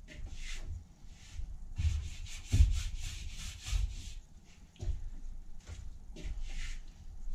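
Hands mixing pizza dough in a large metal bowl: irregular rubbing and scraping, with low thumps as the dough is pushed and turned against the bowl.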